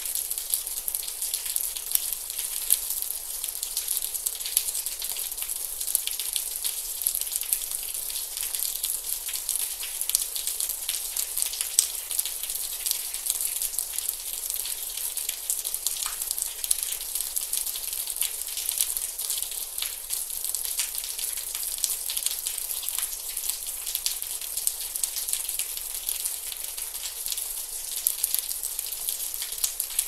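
Gentle rain on window glass: a steady, high hiss with a dense patter of small drops ticking throughout.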